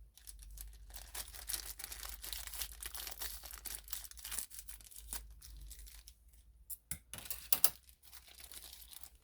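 Packaging of a new chainsaw starter ratchet being torn open and crinkled: a dense crackling rustle, with a few louder sharp clicks about seven seconds in.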